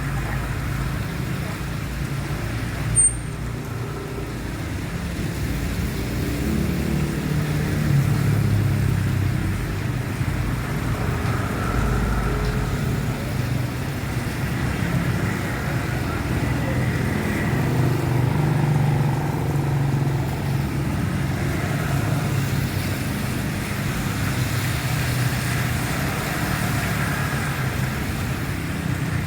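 City road traffic in heavy rain: car and truck engines rumbling past under a steady hiss of rain and wet road noise. One short sharp click about three seconds in.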